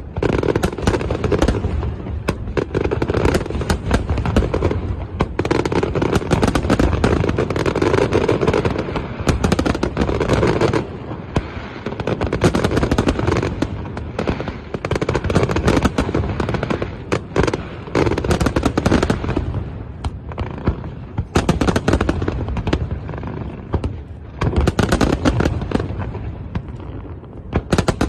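Fireworks going off: dense volleys of rapid cracks and bangs, coming in waves of several seconds with brief lulls between them.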